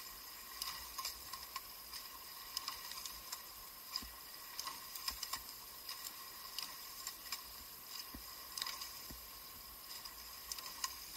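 Faint, uneven light clicks and knocks from a rowing eight's oars and fittings, over a low hiss with a steady faint high whine.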